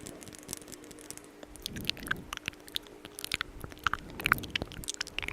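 Lipstick being applied close to the microphone: a quick run of soft sticky, wet-sounding clicks and smacks.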